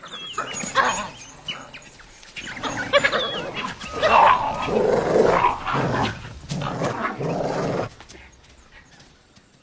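A dog barking and growling in a run of irregular calls that stops about eight seconds in.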